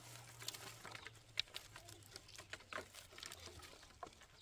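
Faint, scattered clicks and knocks of dry branches and a wooden pole being handled on stony, loose dirt, with one sharper knock about a second and a half in.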